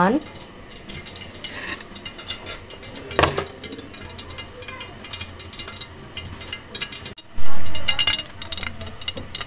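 Hot cooking oil crackling in a pan, with a ringing utensil clink about a third of the way in. About three-quarters of the way in comes a sudden loud burst of sizzling as a breadcrumb-coated chicken bread roll is lowered into the hot oil to fry.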